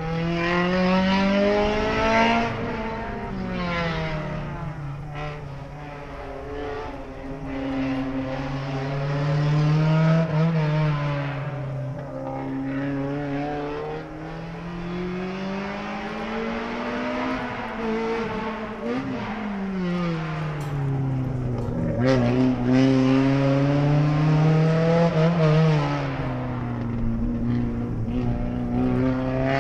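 Honda Civic EG6 Group A touring car's 1.6-litre four-cylinder VTEC engine, driven hard: it revs up and drops back through gear changes and braking, its pitch rising and falling several times as the car passes by and drives away.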